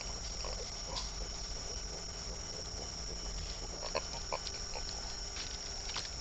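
Coati making short scattered calls and clicks, over a steady high-pitched drone in the background.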